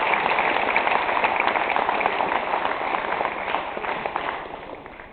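Crowd applauding, many hands clapping, then gradually dying away.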